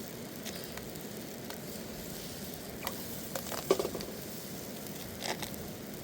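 Steady hiss with scattered crackles, and louder clusters of clicks and knocks a little past halfway and again near the end.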